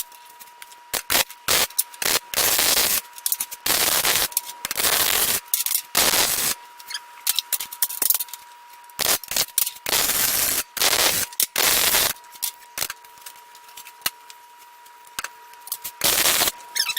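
Electric arc welder laying a series of short tack welds on steel: about a dozen crackling bursts, each half a second to a second long, with gaps between them.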